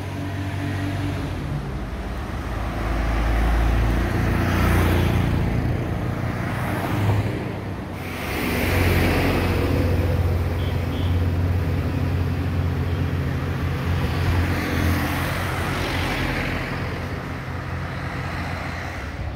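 Road traffic passing close by: several cars and a truck go past one after another, each bringing a swell of tyre and engine noise that rises and fades over a steady low engine hum.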